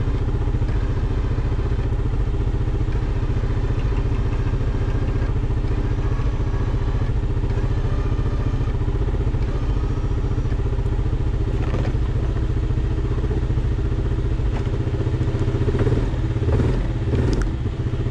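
ATV engine, the Yamaha Kodiak 700 used to tip the overturned machine back up, running steadily. In the second half, knocks and clattering thuds come as the overturned CFMoto CForce 1000 is rolled back onto its wheels.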